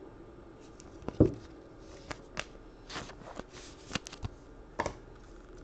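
Trading cards being handled and sorted on a table: a series of light clicks and rustles, with one louder knock about a second in.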